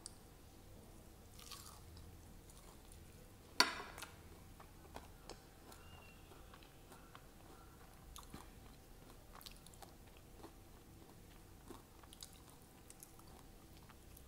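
A crisp bite into a deep-fried sabudana vada (tapioca-pearl fritter) about three and a half seconds in, the loudest sound, followed by quiet crunchy chewing with scattered small crackles.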